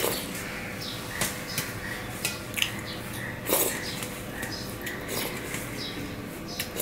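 Fingers mixing and scooping food through a thin curry on a stainless-steel plate, with scattered short scrapes and clicks on the metal and wet eating sounds from the mouth.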